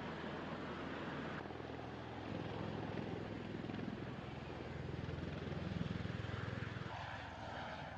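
Aircraft engine and rotor noise: a steady low drone that swells about two-thirds of the way in and changes abruptly twice.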